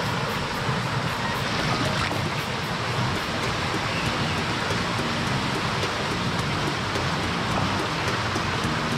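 Steady rush of fast-flowing flood water in a river, with background music and a faint, even beat underneath.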